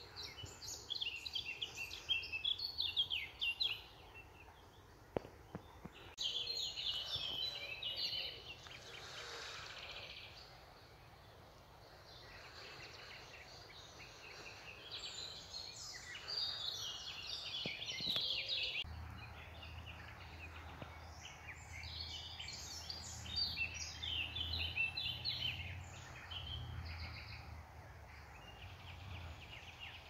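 Small songbirds singing in the trees, in phrases of quick, high twittering notes a few seconds long with short gaps between. A faint steady low rumble comes in about two-thirds of the way through.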